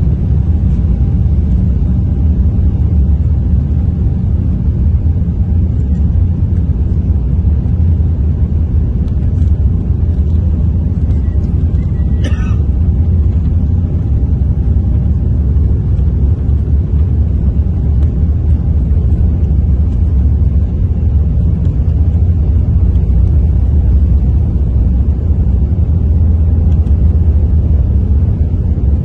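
Inside an Airbus A350-900's cabin, its Rolls-Royce Trent XWB engines and the aircraft rolling along the ground make a loud, steady low rumble that swells slightly near the end. A brief rattle comes about twelve seconds in.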